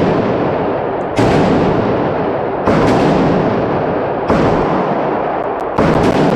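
Arsenal SAM7R, a milled-receiver AK-pattern rifle in 7.62×39mm, fired in slow single shots: four shots about a second and a half apart. Each shot rings on, echoing in an indoor range.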